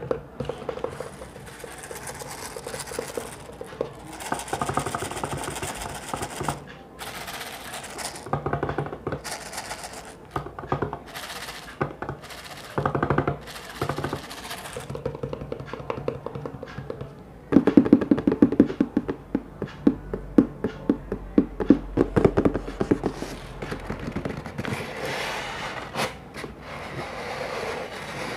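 Close-miked ASMR trigger sounds: fingers tapping and scratching on objects. Past the middle there is a run of quicker, sharper taps.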